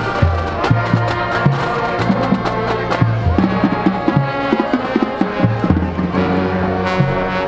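Marching band playing: brass holding chords over a moving bass line, with drums and percussion striking throughout, busiest in the middle.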